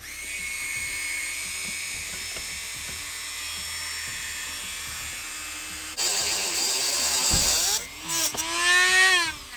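Dremel rotary tool with a cutoff wheel running at a steady high whine, then turning louder and harsher from about six seconds in as the wheel cuts into metal clamped in a vise. Near the end its pitch climbs and then drops away.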